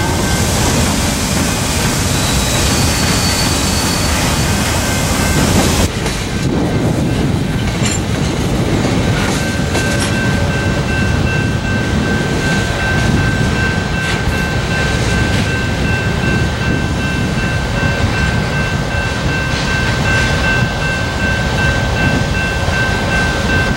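Freight train of tank cars rolling past, a steady rumble of wheels on rail with some clacking, in two takes that switch abruptly about six seconds in. For most of the second take a steady high ringing tone sounds over the rumble.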